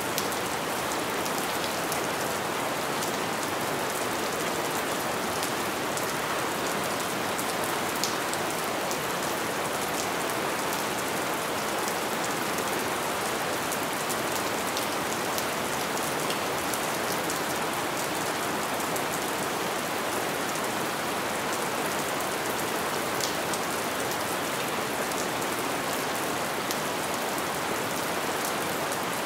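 Light rain falling steadily: an even hiss of drops, with the odd sharper drop tap standing out.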